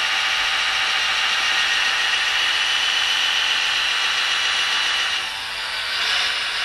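Radio-controlled hydraulic scale model Caterpillar 14M motor grader running: a steady, high electric whine from its hydraulic pump and drive motors. The whine eases for about a second near the end, then comes back.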